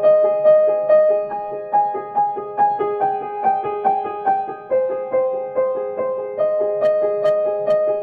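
Background piano music: a melody of evenly paced, sustained notes, about two or three a second.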